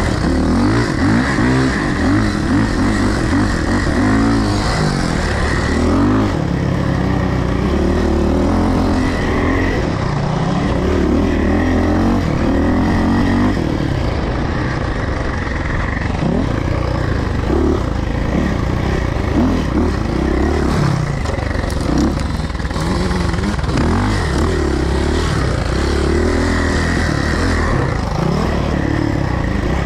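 Suzuki dirt bike engine being ridden hard, revving up and dropping back again and again as the rider works the throttle and gears.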